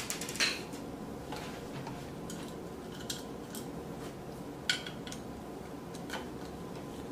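Scattered light clicks and taps of small plastic boiler parts being handled and fitted by hand, over a steady low background hum; the sharpest click comes about two-thirds of the way through.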